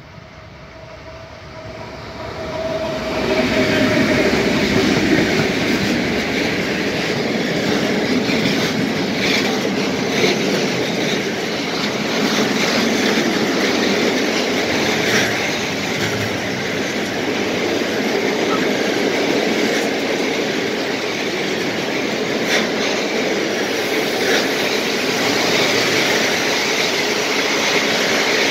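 Two Fablok 15D diesel locomotives approach with a rising engine drone and pass about three seconds in. A long train of open freight wagons then rolls by with a steady rumble and intermittent clicks of wheels over rail joints.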